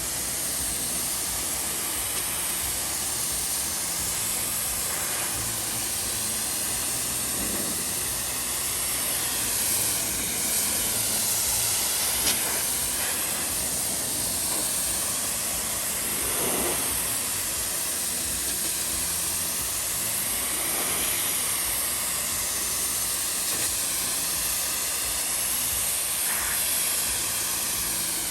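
Pressure washer jet spraying steadily onto a car's paint, rinsing off a degreaser pre-wash: a continuous hiss whose tone sweeps slowly up and down as the nozzle moves across the panels.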